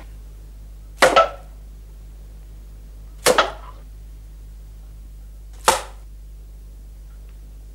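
Three short, sharp knocks about two seconds apart, each dying away quickly, over a low steady hum.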